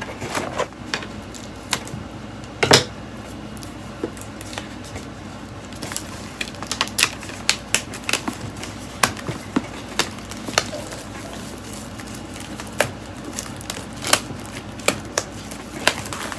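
Hands opening a product box: scattered, irregular clicks and taps of packaging being handled, with one louder snap about three seconds in and more frequent clicks in the second half.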